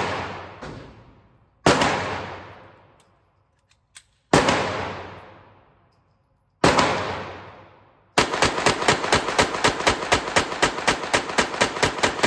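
Semi-automatic pistol fired in an indoor range: three single shots about two seconds apart, each echoing off the walls and dying away, then a rapid string of about twenty shots, roughly five a second, as the magazine is emptied.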